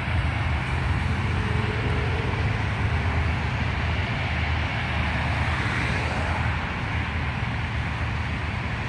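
Road traffic on a multi-lane road: a steady, continuous wash of tyre and engine noise with a low rumble, swelling as a vehicle passes about six seconds in.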